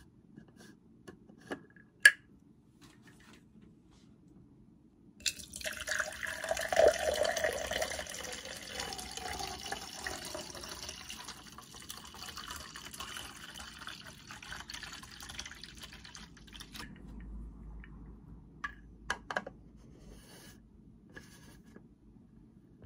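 Water poured into a clear plastic tumbler, a steady splashing pour starting about five seconds in and lasting around eleven seconds, loudest at the start. Before and after it come a few sharp clicks from the tumbler's plastic lid and straw being handled.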